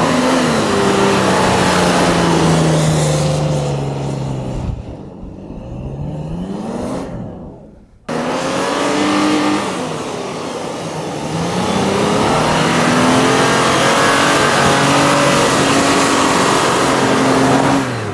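Off-road 4x4 engine revving hard while driving over desert sand dunes, its pitch rising and falling with the throttle, over a constant rushing hiss. An abrupt cut about eight seconds in starts a second stretch of revving, held high near the end.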